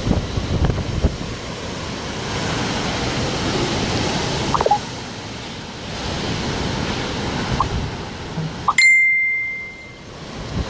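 Hurricane wind rushing and gusting against the microphone. Near the end the noise cuts out abruptly and a single high bell-like ding rings and fades over about a second.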